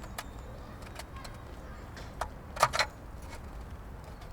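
Scattered light clicks and knocks of small hard objects being handled, two sharp ones close together a little past the middle, over a low steady background.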